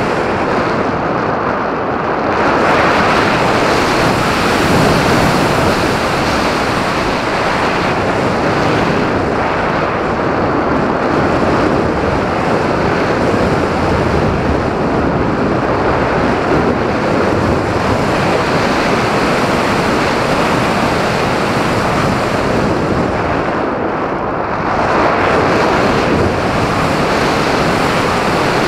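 Steady rushing wind noise as air streams over the onboard camera's microphone of an RC glider in flight, swelling louder about two seconds in and again near the end.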